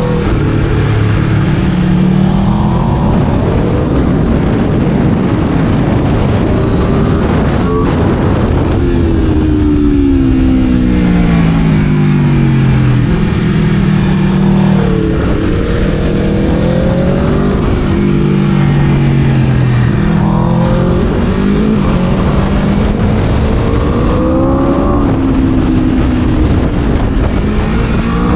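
Aprilia RSV4's V4 engine at racing pace, its pitch climbing hard under acceleration and then dropping in steps as it brakes and downshifts, several times over, with a constant rush of noise underneath.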